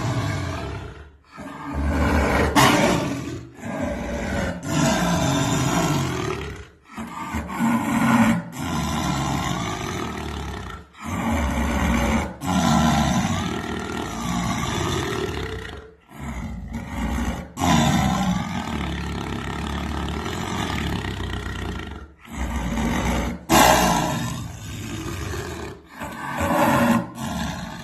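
Jaguar calling: a chain of rough, growling calls, each one to four seconds long, with short breaks between them.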